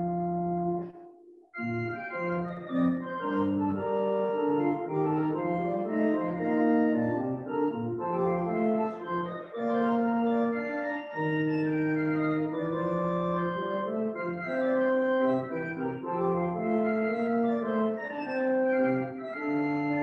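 Pipe organ playing held chords that change every second or so, with a short break about a second in before the music picks up again.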